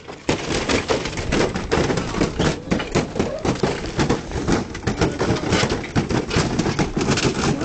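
Crowd clapping and shouting: a dense, irregular clatter of many hand claps over a jumble of voices.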